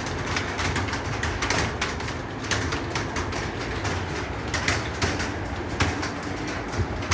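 Computer keyboard being typed on at a quick, uneven pace: a run of key clicks, several a second, over a steady low hum.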